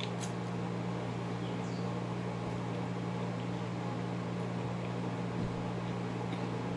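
Steady low mechanical hum with a faint hiss, unchanging throughout.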